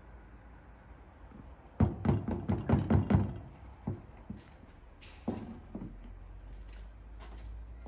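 Metal baking tray of cake batter knocked down on a wooden table about eight times in quick succession, settling and levelling the batter; a single knock follows a couple of seconds later.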